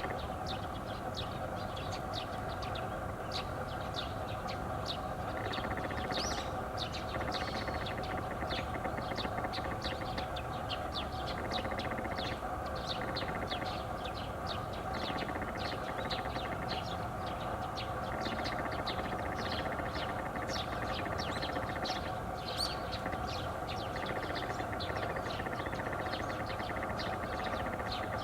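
Garganey calling: many short, dry, rattling calls repeated over and over, some running together into fast crackling stretches, over a steady background hum.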